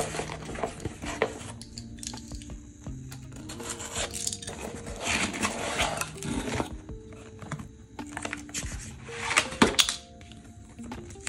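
Cardboard mailer box being opened and handled: clicks and scraping of cardboard flaps, a longer rasping stretch near the middle as the lid comes open, and a louder sharp scrape near the end as a card slides out, over soft background music.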